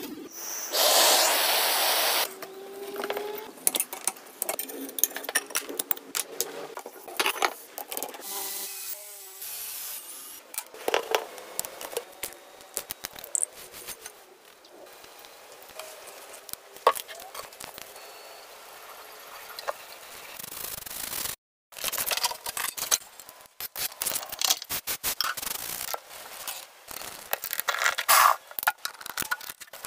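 Workshop handling sounds: a loud hissing rush for about a second and a half near the start, then a string of sharp clicks, scrapes and rubbing strokes from tools and metal parts being worked. There is a brief drop to silence about two-thirds of the way through.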